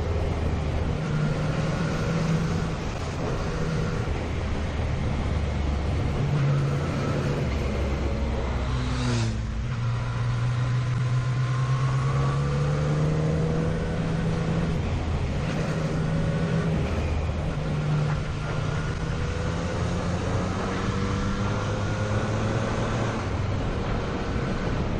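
Motorcycle engine running under way on a mountain road, its note rising and falling with throttle and gear changes, with steady wind rush over the microphone.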